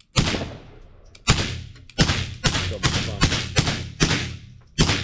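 Walther P22 .22 LR pistol firing through a Griffin Armament Resistance 9mm suppressor: about nine shots, each a sharp crack with a short ringing tail. The first two come about a second apart, then the rest follow quicker, two or three a second.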